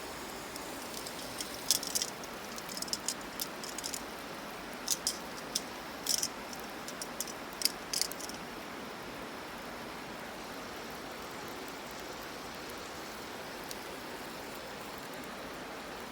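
Wood fire burning with a steady hiss and sharp crackles and pops; the pops come in the first half and stop at about eight seconds, leaving the steady hiss.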